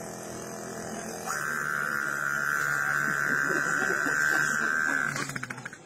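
A man's voice imitating a running generator: a steady low droning hum, joined about a second in by a high, steady whine that holds for about four seconds and then stops.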